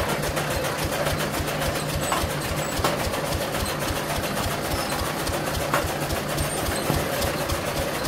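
Electric chaff cutter running and chopping green maize fodder as it is fed in: a fast, even mechanical clatter over a steady motor hum.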